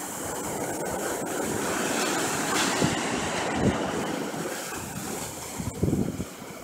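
Ocean surf breaking and washing up the beach, with wind gusting on the microphone, strongest about six seconds in.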